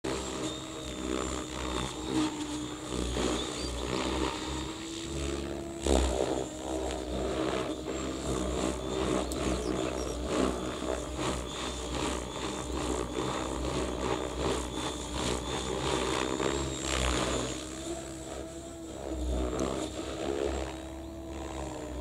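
Male Siberian rubythroat singing in short, irregular phrases over a steady mechanical drone with an even hum and a gusty low rumble of wind on the microphone.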